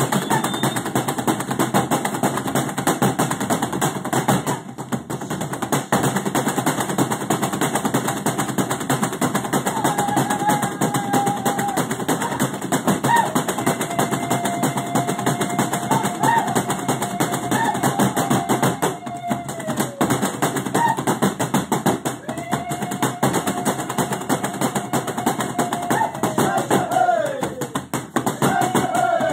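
Zulu dance music: a cowhide drum beaten in a fast, dense rhythm under the dancers' stamping feet. Several long held calls sound over it, each sliding down in pitch at its end.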